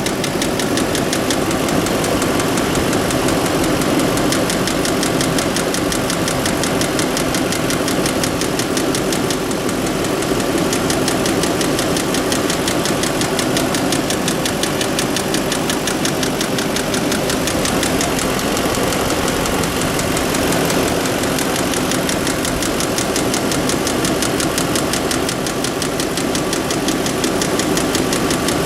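Audi A8 engine idling steadily with a fast, even knocking running through it, the knocking noise the owner is recording.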